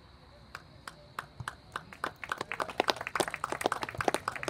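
A small crowd of spectators clapping: a few scattered handclaps at first, with more hands joining about two seconds in.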